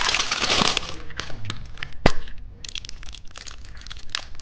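Plastic candy packaging crinkling and tearing as it is opened, with one sharp crack about two seconds in and small irregular clicks after.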